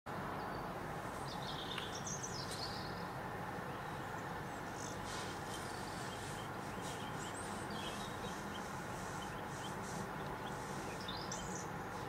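Small birds chirping now and then over a steady outdoor background hiss, with a cluster of chirps about a second in and another near the end.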